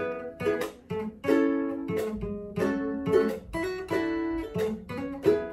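Background music: a plucked string instrument picking a light melody, note by note, each note ringing briefly.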